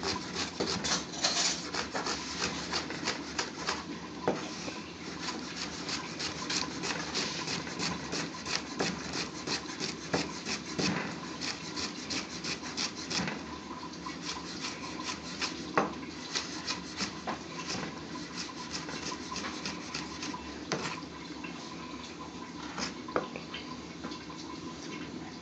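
Chef's knife slicing a grilled onion on a plastic chopping board: a steady run of quick knife taps against the board, a few strokes a second, with the rasp of the blade through the onion layers.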